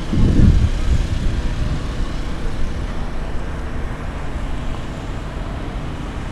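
Steady low rumble of outdoor background noise with no clear engine note, louder for about a second near the start.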